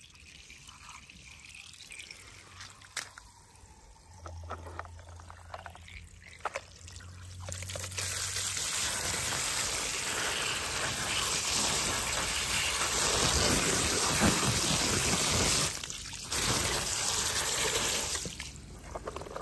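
A jet of water splashing onto a muddy die-cast toy tow truck, rinsing it off. It starts about seven seconds in after a quiet stretch with a few faint handling clicks, breaks off briefly, then runs until just before the end.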